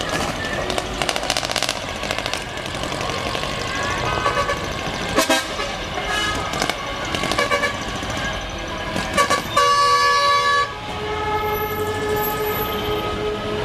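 Horns on decorated Japanese trucks sounding as the trucks pass, over a running background of truck engines. There are several short toots in different pitches. The loudest is one long, many-toned horn blast about nine and a half seconds in, followed by a steady held horn tone near the end.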